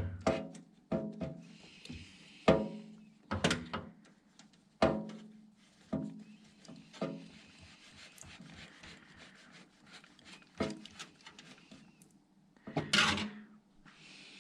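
Screwdriver and screws working in a PC case while motherboard screws are driven in: irregular clinks and knocks, several with a short ringing tone, loudest near the start and about 13 seconds in.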